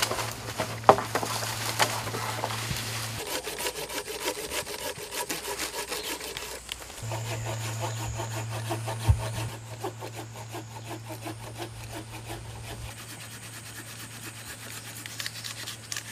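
Hand saw cutting through a green branch with fast, repeated back-and-forth strokes. A few sharp knocks of wood come first.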